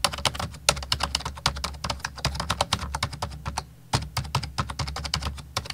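Rapid computer keyboard typing, a quick run of key clicks with a short lull a little under four seconds in, over a low steady hum.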